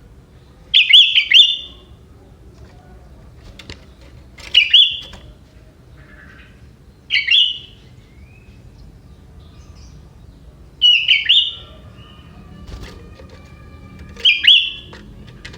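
Young wild sooty-headed bulbul (kutilang) singing, with prenjak-like notes in its song: five short, bright chirping phrases spaced about three to four seconds apart.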